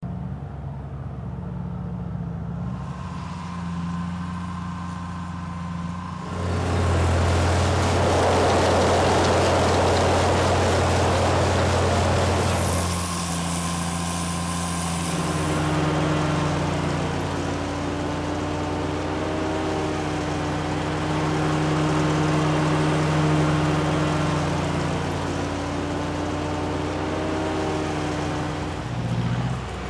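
Engines of pistachio harvesting machinery running steadily, the sound changing abruptly several times as the footage cuts between machines. It is loudest, with a heavy rushing noise over the hum, from about six to thirteen seconds in.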